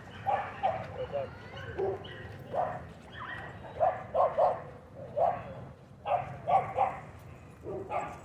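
A dog barking in short, high barks and yips, about two a second and unevenly spaced: play barking while dogs chase each other.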